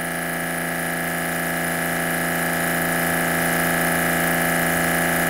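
Kranzle K1322TS electric pressure washer running steadily under load, its motor and pump humming evenly while it pushes water out of the spray gun. Close by it reads about 84 dB.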